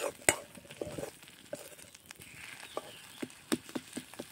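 Metal spatula scraping and tapping against an iron wok as food is stirred and fried, in irregular strokes over a light sizzle.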